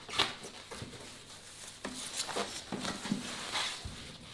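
Thin plastic wrapping bag rustling and crinkling as it is pulled up off a new air fryer oven, in uneven scrapes and crackles.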